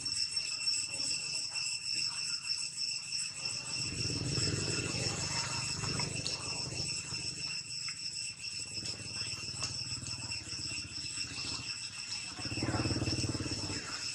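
Steady high-pitched insect chorus, several tones held constant throughout. A low rumble swells about four seconds in and again near the end.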